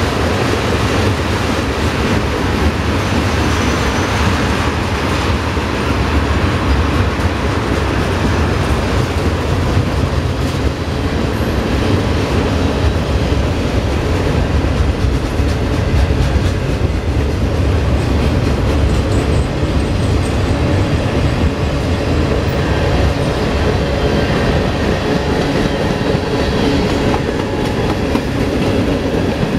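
Freight cars of a passing mixed freight train (tank cars, boxcars and covered hoppers) rolling by: the steady, loud noise of steel wheels running on the rails, heaviest in the low end.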